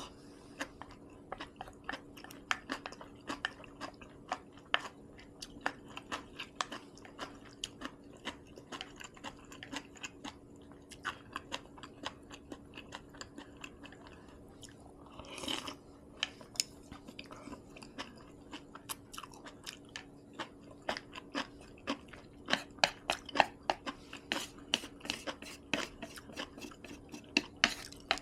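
Close-miked chewing of a meal of seaweed soup, rice and kimchi: a steady run of small wet mouth clicks and crunches, growing denser and louder over the last several seconds, with one brief louder sound about halfway through.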